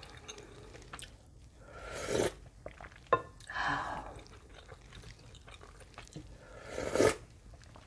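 Close-miked mouth sounds of someone eating spicy ramen noodle soup: soft wet chewing, a sharp click about three seconds in, and two loud, swelling slurps, one about two seconds in and one near the end.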